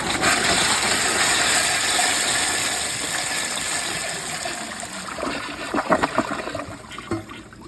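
Glacier Bay Pro Series toilet flushing with its tank overfilled: a loud rush of water that gradually eases. A few gurgles come near the end as the siphon breaks.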